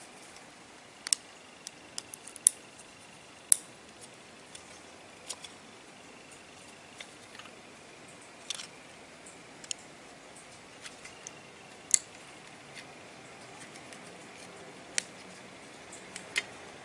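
Small, sharp clicks and taps at irregular intervals, a few much louder, from a metal backplate being pried and worked off an iPhone 6 display assembly with a plastic pry tool and tweezers. A faint hiss lies under them.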